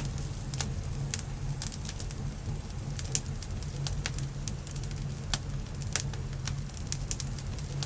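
Wood fire crackling, with frequent sharp irregular pops over a steady low hum.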